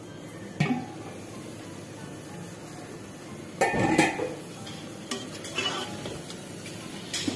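A spoon clanking and scraping against a cooking pan as tomato masala is stirred, with a few sharp knocks about half a second in, a louder cluster around four seconds in and one just before the end, over a faint steady sizzle of frying.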